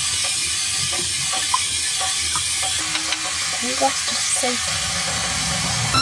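A steady hiss, with faint voices briefly a little past halfway.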